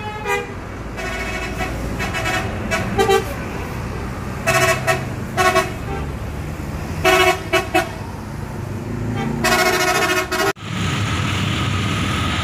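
Tour buses in a convoy sounding their horns in short repeated blasts, several tones at once, over the rumble of bus engines and traffic. About two thirds of the way through the horns stop and steady street traffic noise takes over.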